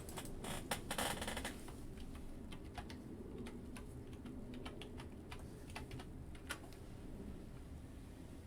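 Typing on a computer keyboard: a quick run of key clicks in the first second or so, then scattered single keystrokes.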